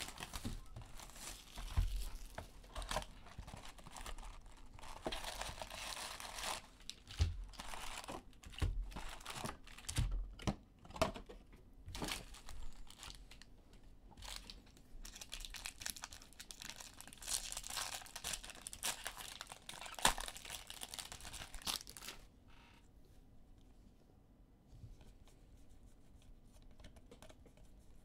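Baseball card packs being torn open by hand, their wrappers crinkling and rustling, with scattered taps and clicks of cards being handled. It stops about 22 seconds in, leaving a quiet room.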